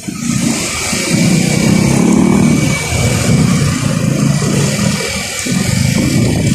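A vehicle's engine running while on the move, growing louder about a second in.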